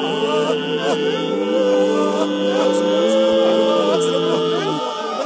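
Unaccompanied voices singing a mourning chant. Low voices hold a steady chord while a higher voice sings wavering, bending phrases above it, and the held chord stops a little before the end.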